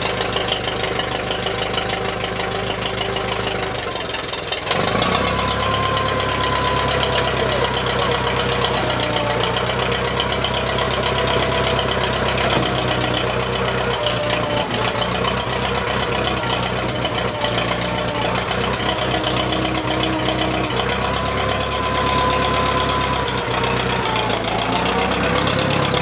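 Case 430 tractor engine running steadily; about four and a half seconds in it gets louder and fuller, and keeps running at that higher level.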